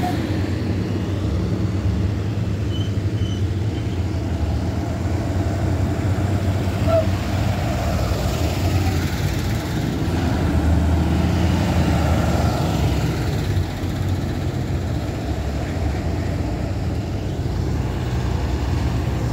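School buses driving past one after another, their engines a steady low rumble. It is loudest about ten to thirteen seconds in, as one bus passes close.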